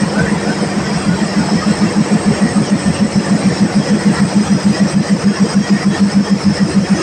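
Diesel locomotive engine running with a rapid, even throb.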